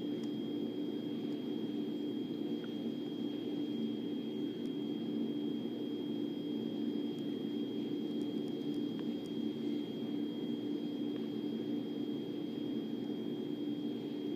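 A steady low droning hum with a faint constant high whine running under it.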